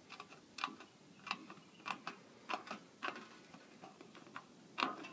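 Fine-cutting hand snips cutting a circle out of thin sheet steel: a sharp snip with each squeeze of the handles, roughly every half second to second, pausing briefly before the loudest snip near the end.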